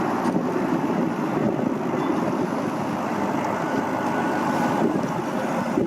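Boat engine running steadily, with wind on the microphone.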